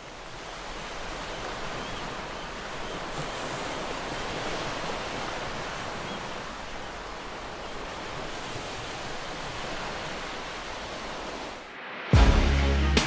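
Ocean surf washing onto a beach: a steady rushing noise that fades in at the start. About twelve seconds in it stops and loud music cuts in abruptly.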